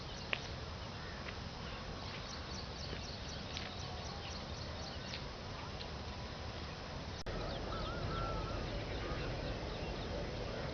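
Birds chirping in short, scattered calls over a steady hiss of background noise. About eight seconds in there is a wavering call.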